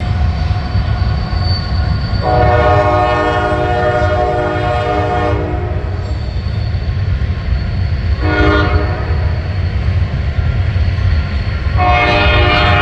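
Diesel locomotive air horn sounding a long blast, a short blast, then another long blast starting near the end, over the steady low rumble of a passing freight train.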